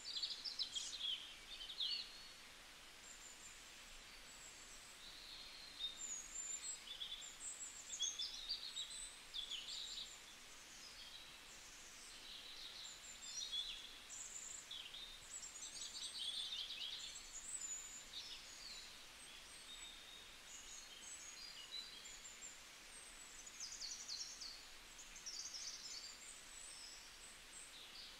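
Birds chirping and calling over and over, with a faint steady hiss underneath.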